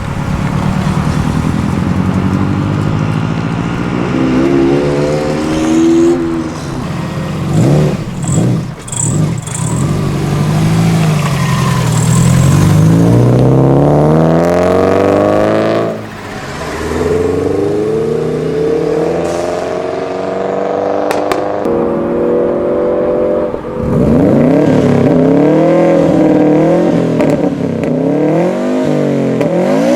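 Subaru Impreza flat-four boxer engines revving and accelerating, the engine note climbing and dropping again and again across several takes, with rapid up-and-down blips near the end.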